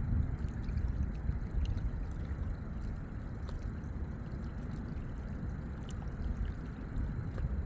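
Lake water lapping and gurgling at the shore, over a steady low rumble.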